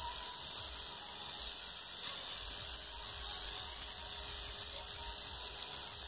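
Backpack sprayer's lance spraying liquid onto rose bushes, a steady hiss, with wind rumbling on the microphone.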